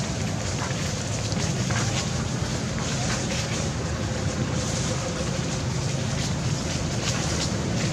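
Steady low rumble of wind buffeting the microphone, with an even outdoor background hiss.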